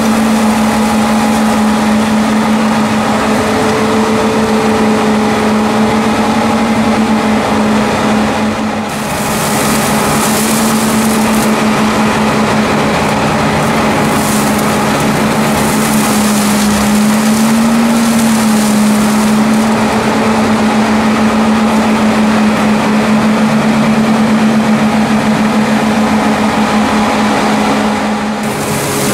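Fendt 720 Vario tractor and its Herder flail mowing-and-suction arm running steadily while mowing a ditch bank: a loud, even machine hum with a high hiss over it. The sound dips briefly about nine seconds in and again near the end.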